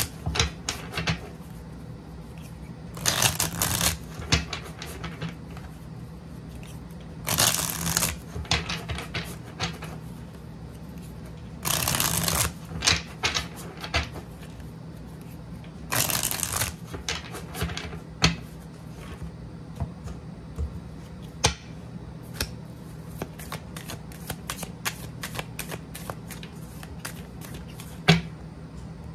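A deck of tarot cards being shuffled by hand. There are four riffle shuffles about four seconds apart, each a ruffling burst of about a second, with lighter flicks and taps of the cards in between and one sharp tap near the end.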